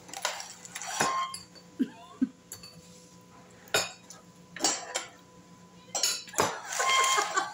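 A metal fork and spoon clinking and scraping against ceramic bowls and a metal pot during a meal, in irregular sharp clinks spread over several seconds.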